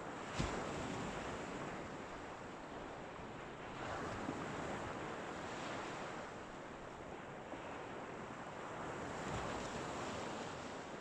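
Small waves breaking and washing up a shingle beach, the surf swelling and easing every few seconds. A single sharp tap is heard about half a second in.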